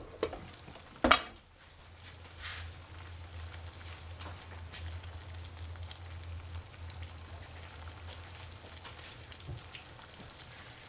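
A steel pan lid is lifted off with a couple of metallic knocks, the louder about a second in. Then vegetables stewing in a frying pan sizzle softly over a low steady hum.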